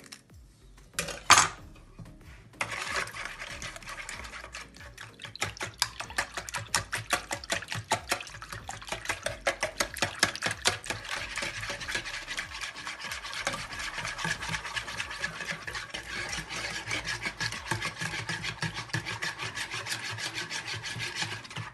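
A sharp knock about a second in, then a wire whisk beating a liquid egg-and-milk mixture in a plastic bowl: rapid, rhythmic strokes of the wire against the bowl that run on without a break.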